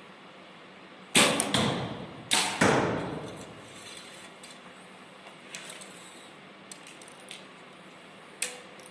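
An archery bow being shot: a sharp crack about a second in and two more about a second later, each ringing out briefly. A few light clicks follow, then one sharp tap near the end.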